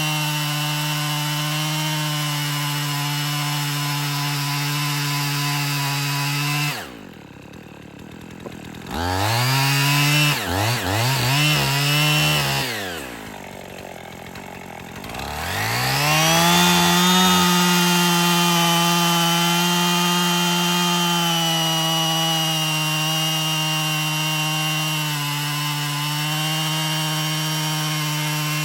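Husqvarna 55 two-stroke chainsaw running at high revs. About seven seconds in the throttle drops off, is blipped up and down several times, and falls back to idle, then the saw is run up again and held at a steady high speed.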